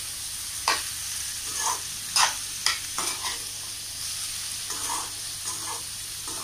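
Metal spatula scraping and stirring diced tindora (ivy gourd) in a metal kadai, with a series of irregular scrapes over a steady sizzle of the vegetables frying in oil.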